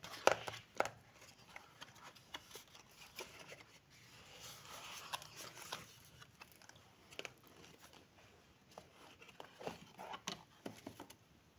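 Cardboard perfume box being handled and opened: scattered soft taps and clicks of the card, with a longer rustling slide in the middle.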